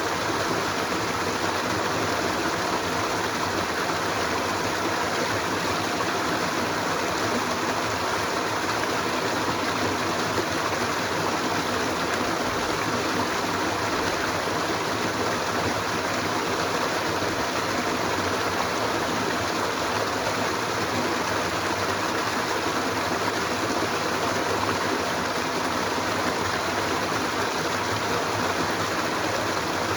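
Steady rushing of a flowing stream, an even water noise that does not change.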